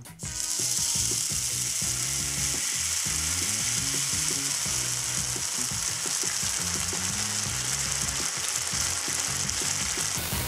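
Thin water-and-sunflower-oil batter sizzling and crackling hard as it is squeezed into a very hot frying pan, the water boiling off through the oil to form a lacy chip. The sharp high part of the hiss cuts off suddenly near the end.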